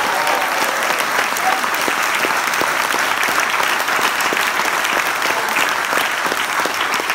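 A large crowd in a hall applauding steadily, a dense patter of many hands clapping.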